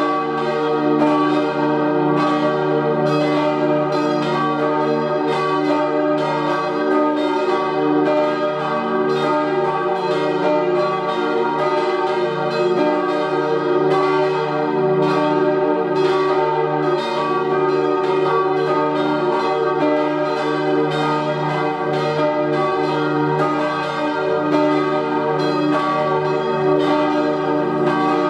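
The four church bells cast by Rüetschi of Aarau in 1888, tuned to E-flat, G, B-flat and the upper E-flat, ringing together in a full peal. The strikes overlap at about two a second over a steady hum of sustained tones.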